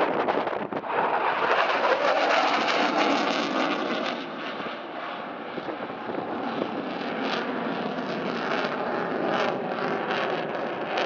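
Eurofighter Typhoon's twin jet engines roaring in a flypast. The roar is loudest a couple of seconds in, then fades to a lower, steady level as the jet draws away.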